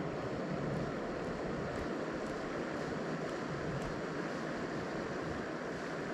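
Steady outdoor rush of wind and river water, with wind buffeting the microphone in an uneven low rumble.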